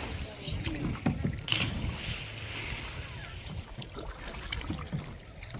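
Kayak paddle dipping and splashing in creek water, with a couple of louder splashes near the start and wind rumbling on the microphone.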